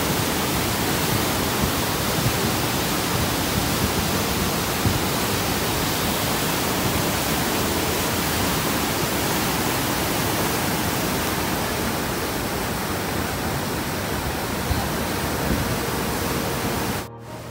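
Steady rushing noise of a river in flash flood, the muddy torrent pouring over boulders. It cuts off suddenly near the end.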